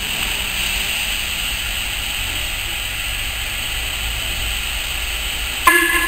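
Steam locomotive hissing steadily as it lets off steam, with a short, loud toot of its whistle near the end.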